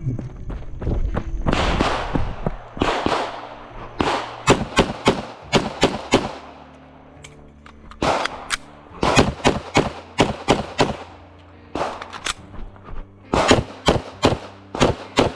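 Pistol gunfire from two shooters firing a timed stage together. The shots come in rapid, irregular strings of doubles and clusters, with a brief lull about seven seconds in and again near eleven seconds.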